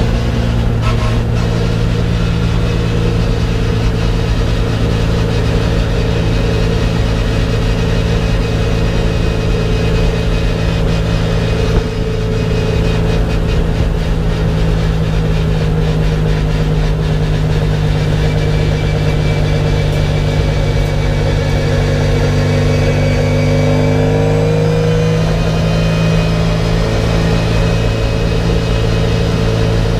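Racing car's engine running at steady road speed, heard from inside the cabin, a continuous drone whose pitch shifts briefly about three-quarters of the way through.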